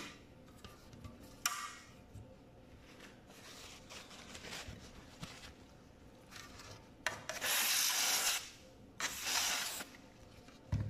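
Wiping and scrubbing the inside of a 2008 MacBook's aluminium bottom case with rubbing alcohol: a series of rubbing strokes, the two loudest and longest near the end.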